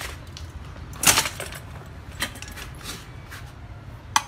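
Metal parts and bolts clinking and knocking as they are handled, with a louder clatter about a second in and a sharp click near the end.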